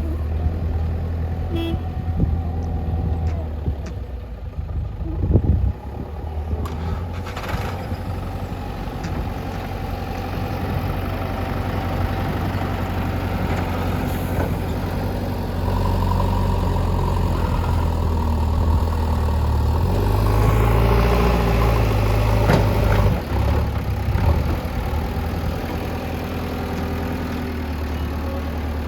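JCB backhoe loader's diesel engine running under changing load as the front bucket works soil, louder and heavier for a stretch in the second half, with a few sharp knocks of metal.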